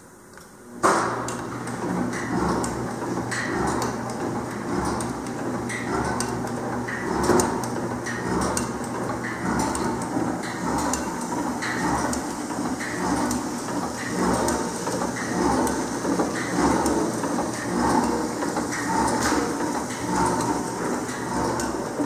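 PFM Hawk S horizontal flow wrapper starting up about a second in and then running, with a steady hum and a repeating mechanical clack about once a second.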